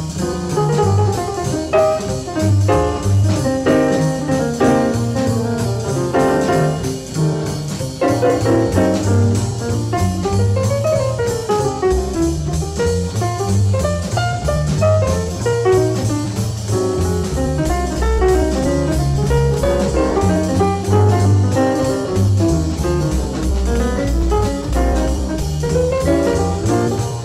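Jazz instrumental music with guitar over bass and drums, playing steadily.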